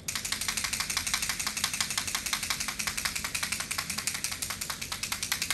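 Rapid, even rattling at roughly nine strokes a second, started abruptly and stopped after about five and a half seconds: a sound trigger made at a horse to teach it to stay calm and lower its head at the noise.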